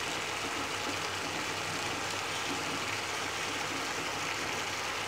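Minced meat and whole tomatoes simmering in water in an open pan, a steady bubbling hiss.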